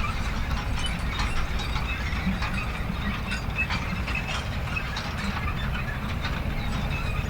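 Manure spreader running: a steady low rumble under continuous, irregular metallic clanking and ratchet-like rattling from its moving parts.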